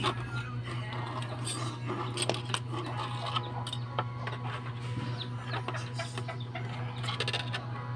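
Small scattered clicks of pliers working a length of steel wire, with chickens clucking in the background over a steady low hum. A sharper click comes right at the start.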